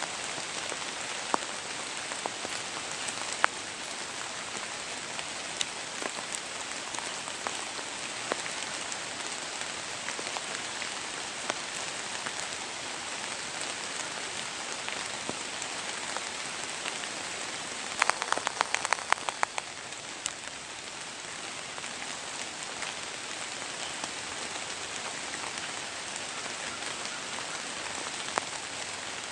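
Steady rain falling, with scattered sharp drop ticks and a quick run of clicks about two-thirds of the way through.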